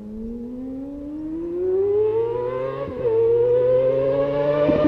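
Yamaha R6 inline-four sport bike engine accelerating hard: the revs climb steadily, drop sharply at an upshift about three seconds in, then climb again. It grows louder as it runs.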